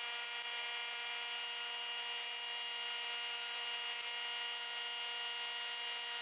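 Table saw running at full speed with no wood in the blade: a steady, even whine with no change in pitch.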